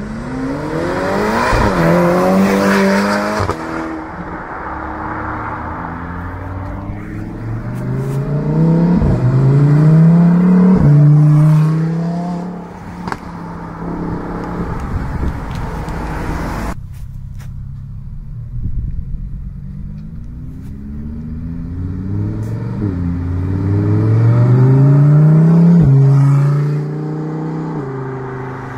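Sports cars accelerating hard away one after another. In three loud pulls the engine pitch climbs and drops sharply at each upshift. The last loud pull comes from a Lamborghini Huracán Performante Spyder's V10.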